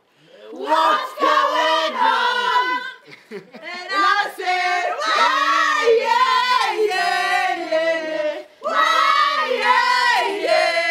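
A group of people singing together loudly, in three long phrases of held and sliding notes with short breaks about three and eight and a half seconds in.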